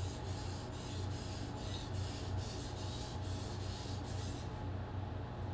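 A steel knife blade is pushed in quick, even strokes across a water-wetted whetstone, scraping at about three strokes a second. The strokes stop about four and a half seconds in.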